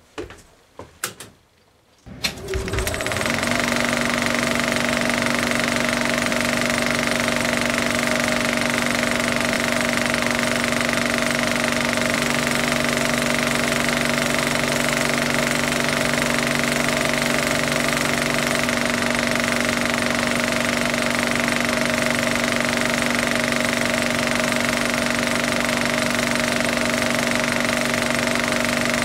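A few switch clicks, then a cinema film projector starts about two seconds in, comes up to speed within a second or so, and runs steadily with a constant mechanical hum.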